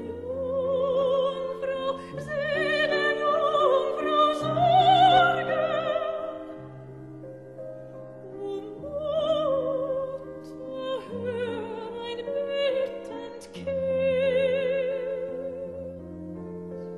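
Background music: an operatic voice singing long notes with a strong vibrato over slow, sustained low chords.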